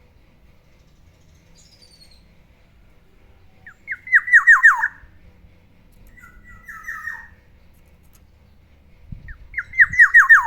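Black-naped oriole calling: two loud phrases of about six rapid notes, each note sliding downward, with a softer, broken phrase between them.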